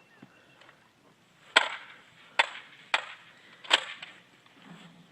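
Four sharp clacks, less than a second apart.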